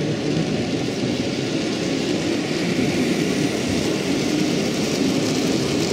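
Steady rumbling ambience of a model railway exhibition hall: a mix of running model trains and a distant crowd murmur, with no single sound standing out.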